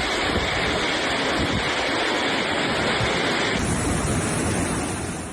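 Heavy storm rain pouring down, a loud, dense rushing with wind on the microphone. The sound changes abruptly about three and a half seconds in, as one storm recording cuts to another.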